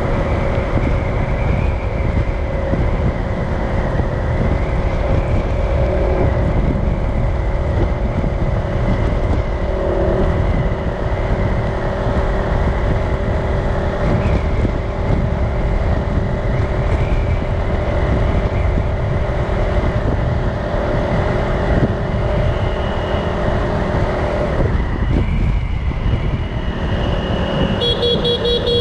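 City street traffic running steadily with a heavy low rumble, with a short horn beep near the end.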